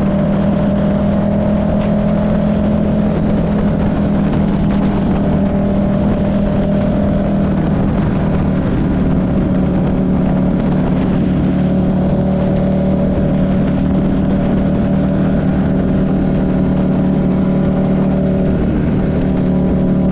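Buell 1125CR's 1125 cc V-twin engine running at a steady speed while riding, with wind and road noise; the engine note holds nearly level, dipping slightly a few times.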